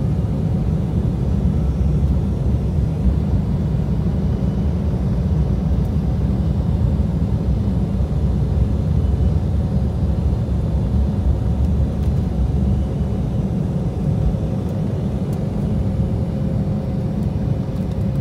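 Airliner taking off, heard from inside the cabin: the engines at takeoff power and the wheels rumbling on the runway make a loud, steady rumble.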